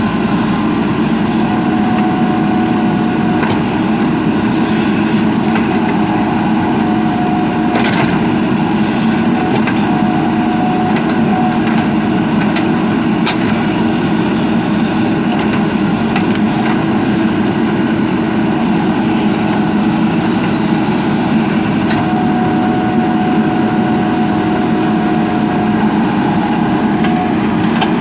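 JCB backhoe loader's diesel engine running steadily while the machine works, with a higher whine that comes and goes and a few sharp knocks.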